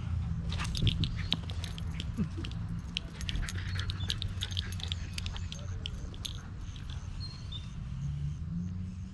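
Dog biting and mouthing a tennis ball, making many quick sharp clicks and crunches, most of them in the first two thirds. A steady low hum runs underneath.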